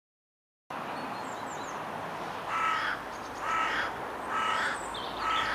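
After a silent first moment, steady outdoor background noise sets in and a crow caws four times, about a second apart.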